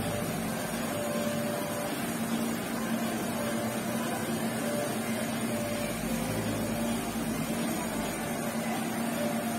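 Electric hair clipper running with a steady hum while the edge of its blade cuts short hair along the side of the head.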